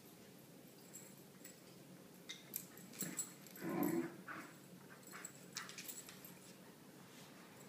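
Two dogs tussling in a tug of war over a stuffed toy: scuffling with scattered sharp clicks, and one short dog vocalisation about halfway through, the loudest moment.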